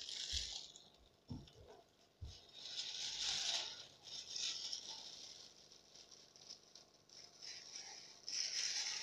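Plastic bag crinkling in several short bursts, with a few soft knocks in the first couple of seconds, as the bag holding the goldfish is handled in the tank.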